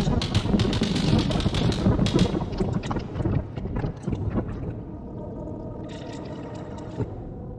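Electronic noise from a Soma Pulsar-23 drum machine and Make Noise modular synth: dense crackling clicks over a low rumble that thin out, settling into a quieter steady noisy drone about five seconds in, with a brief hiss near the end.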